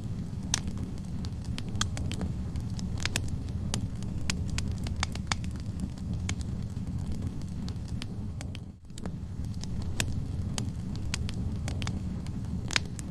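Wood fire burning in a fireplace: a steady low rumble of flames with irregular sharp crackles and pops from the logs. The sound dips briefly about nine seconds in.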